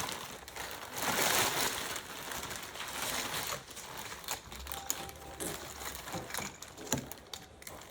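Plastic bag rustling for the first few seconds, then small metal screws clicking and clinking as they are handled.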